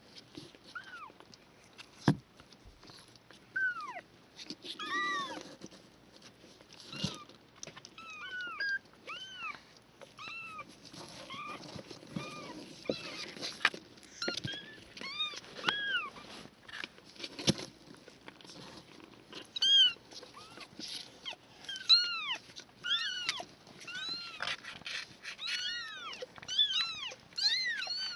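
Several three-week-old kittens mewing over and over, short high thin mews that often overlap, with a few sharp knocks in between.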